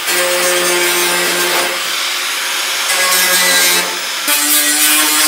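Angle grinder with a thin cut-off disc cutting into the sheet-metal body panel of a 1936 Terraplane coupe: a loud, steady screech over the motor's hum, which drops in pitch about four seconds in.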